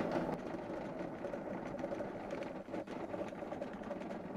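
Hand crank of a Husky height-adjustable workbench turned continuously to raise the top, its gear mechanism making a rapid, steady mechanical whirring and clicking. The footage is sped up four times, so the cranking sounds fast and continuous.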